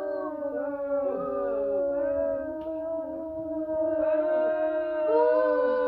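A crowd booing: many voices hold overlapping long 'boo' notes, some sliding down in pitch. It swells louder about four seconds in.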